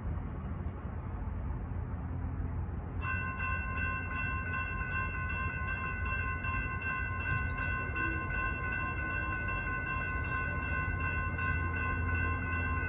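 Railroad crossing electronic bell (E-bell) starts up about three seconds in as the crossing signals activate, then rings in a fast, even ding of about three strikes a second over a low steady rumble.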